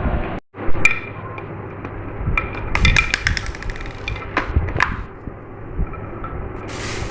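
Marbles rolling and clicking along a marble run track. There is a quick rattle of clicks about three seconds in and a few sharper knocks shortly after.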